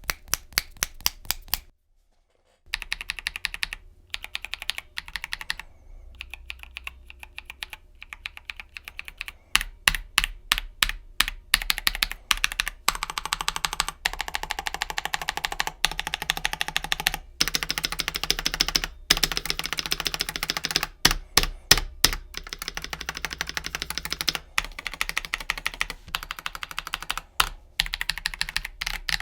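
Typing on a KBD67 Lite R3 mechanical keyboard fitted with lubed Glorious Panda tactile switches: fast, continuous runs of keystrokes, broken by a short silence about two seconds in.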